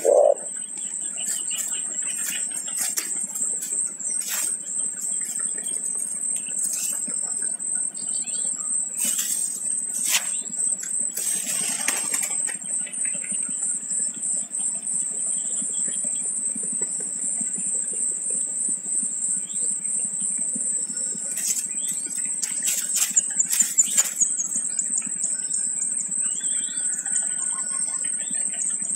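Wing flaps and rustling in the bush as an adult spotted dove comes to its nest of chicks. There are scattered sharp strokes, and the loudest is a quick cluster about 22 to 24 seconds in, over a steady high-pitched whine.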